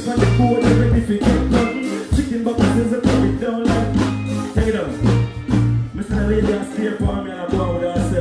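Dancehall backing track played loud through a stage sound system at a live show, with a heavy stepping bass line and a regular drum beat.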